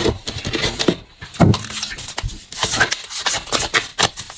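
Tarot cards being handled on a table: an irregular string of short taps, clicks and slaps, with one heavier knock about one and a half seconds in.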